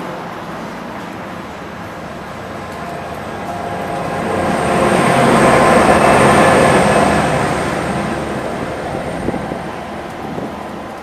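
Train passing by, growing louder to a peak about six seconds in and then fading away, with a thin high whine along with it.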